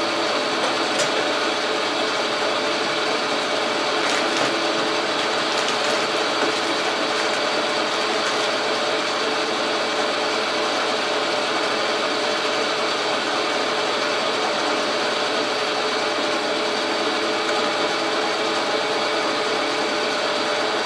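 Logan metal lathe running steadily while turning a 2-inch aluminum rod, a continuous machine sound with several steady tones, and a few faint ticks early on.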